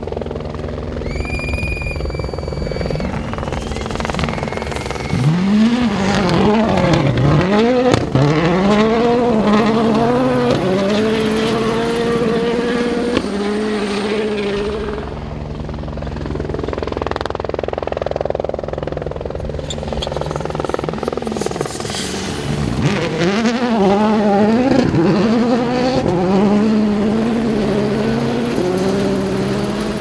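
World Rally Cars passing at speed on a gravel stage, their turbocharged 1.6-litre four-cylinder engines revving hard, the pitch climbing and dropping sharply again and again with gear changes and lifts, first about five seconds in and again from about twenty-two seconds. A steady low drone runs underneath throughout, and a brief high whistle sounds near the start.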